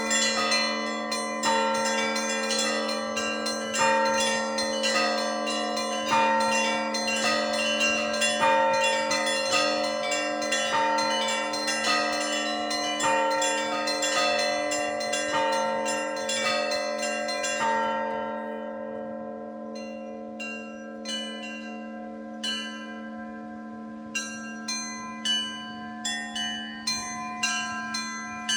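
Orthodox church bells ringing: a rapid, dense pattern of small bells over a steady low hum from the larger bells. Roughly two-thirds of the way through, the rapid ringing stops and gives way to sparse single strikes, which quicken again near the end.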